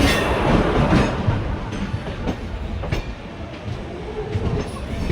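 A passenger train rolling along the platform, its wheels clacking over the rail joints over a low rumble, growing quieter.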